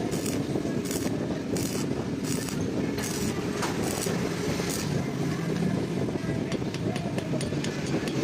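Steady low workshop and traffic rumble, with a regular scraping stroke about every three-quarters of a second for the first five seconds, then faint light clicks.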